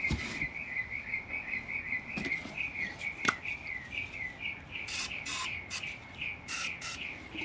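A steady run of high, quick chirps, about five a second. Four short hisses of a WD-40 aerosol spray, two at a time, come about two-thirds of the way in, with a few light clicks of metal parts.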